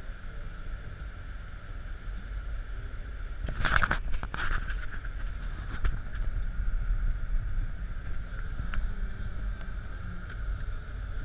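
Car driving on a snow-covered road, heard from inside the cabin: a steady low rumble of engine and tyres, with two short scraping knocks about four seconds in.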